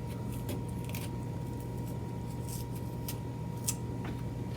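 Paring knife trimming a carved vegetable garnish: a few faint, scattered cutting ticks and scrapes over a steady low electrical hum.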